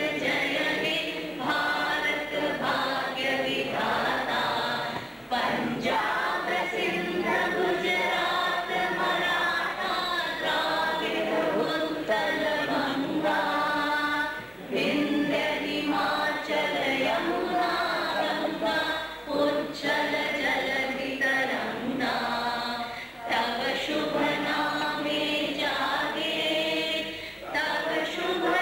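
A choir of young voices singing a song together in chorus, the phrases broken by short breaths every few seconds.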